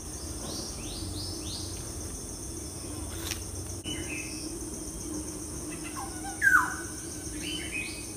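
Birds chirping in short downward-sweeping calls, the loudest about six and a half seconds in, over a steady high insect drone and a low steady hum.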